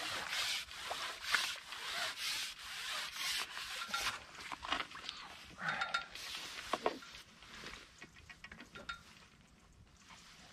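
Rubbing and rustling handling noise, a run of rough strokes with a few clicks, thinning out over the last few seconds.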